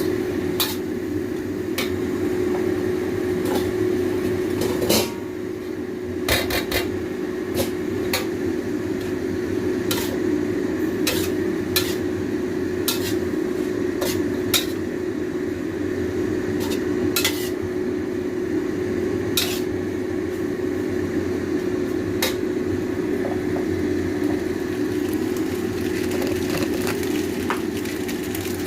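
Metal utensils clinking and knocking irregularly against a pot or pan while mie goreng is being cooked, over a steady hum.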